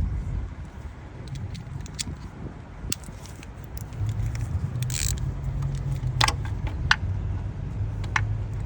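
Metal hand tools clinking and tapping against the engine, with a short scrape about five seconds in. A steady low rumble underneath gets a little louder from about four seconds in.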